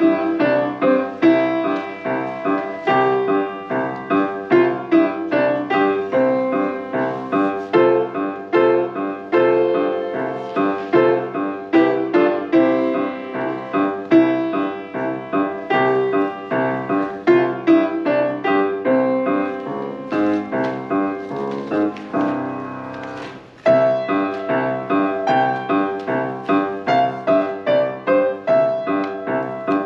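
Solo piano piece played in a steady, even rhythm of distinct notes. Near the three-quarter mark it fades and pauses briefly, then resumes with a loud attack.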